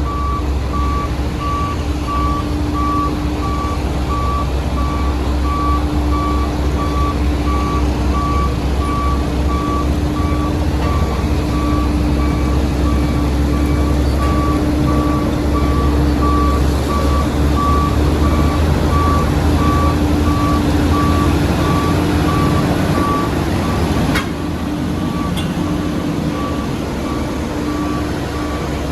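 Reversing alarm of heavy construction equipment beeping about twice a second over a steady diesel engine drone as the machine backs up. A click comes about 24 seconds in, where the engine sound drops a little.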